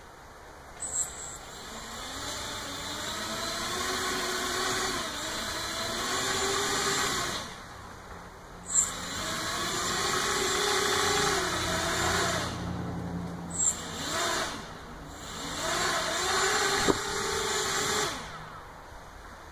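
A DIY quadcopter's four small electric motors and propellers spin up with a whine that rises and falls in pitch, in several bursts with short pauses between them. The drone fails to lift off and tips over on the deck. A short sharp blip comes as the motors start, and there is a click near the end.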